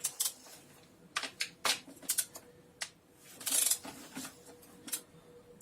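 Metal hand tools clicking and clinking irregularly as a wrench works the valve cover bolts on a Ford Scorpio engine, with a brief scraping rasp about three and a half seconds in.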